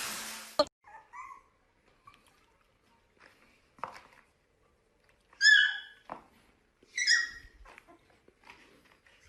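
A puppy giving two short, high-pitched yelps about a second and a half apart, with fainter squeaks and small noises around them. A steady hiss fades and cuts off with a click in the first second.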